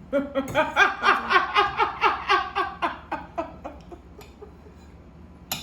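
A person laughing hard: a quick run of "ha" syllables, about four a second, each dropping in pitch, trailing off after about three and a half seconds. A single sharp click comes near the end.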